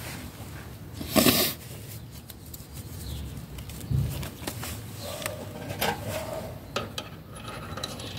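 Small metal parts clinking and knocking as they are handled, with a louder scraping rustle about a second in and a low thump about four seconds in.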